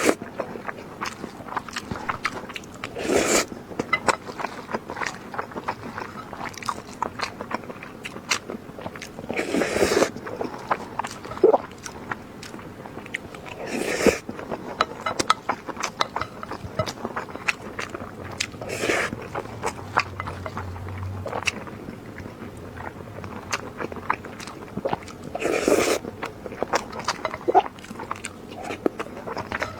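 Close-miked eating: a person chewing with wet smacking and clicking mouth sounds, and a louder, longer mouth noise every few seconds, five in all.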